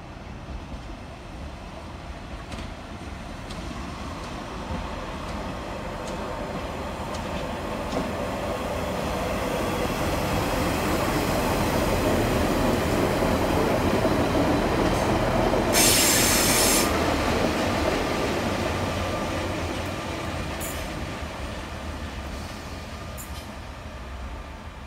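Class 142 Pacer diesel multiple unit, two units coupled, running into the platform. Its engine and wheel noise grows steadily louder as it passes close by and fades as it moves away down the platform, with a brief sharp hiss about sixteen seconds in.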